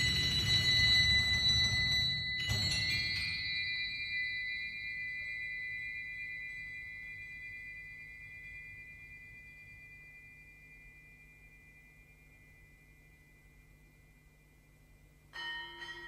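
Struck metal percussion from a contemporary brass-and-percussion ensemble piece: a low rumble under high ringing tones, cut by a sharp metallic stroke about two and a half seconds in whose bright ringing slowly dies away. Near the end another metal instrument is struck and rings with lower, bell-like tones.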